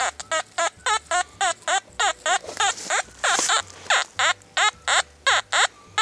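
XP Deus metal detector sounding a target signal: a steady run of short chirping beeps, about three or four a second, each sweeping in pitch as the coil is passed back and forth over a buried metal object.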